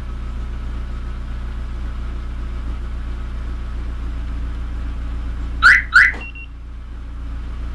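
Car engine idling after a remote start by a StarLine alarm. About five and a half seconds in, the alarm siren gives two short rising chirps, the signal of the alarm being disarmed and the car unlocked, followed by a brief high beep.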